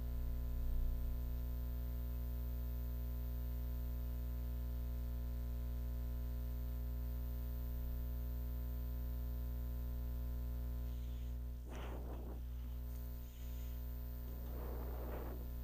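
Steady electrical mains hum and buzz on the recording, with two short faint noises near the end.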